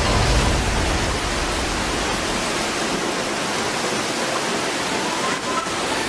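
Steady rushing noise of a muddy flash flood surging down a rocky riverbed, carrying stones and debris.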